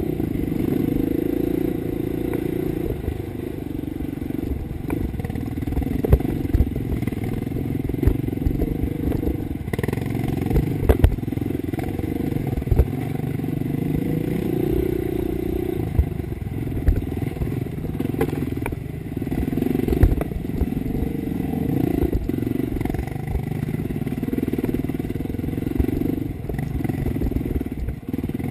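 Dirt bike engine running at low to middling revs, swelling and easing every few seconds with the throttle. Sharp knocks and clatter come from the chassis and stones over rough rocky ground.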